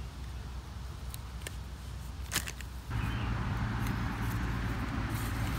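A few sharp clicks from wire strippers working small insulated pump wires, over a steady low outdoor rumble that turns louder and fuller about three seconds in.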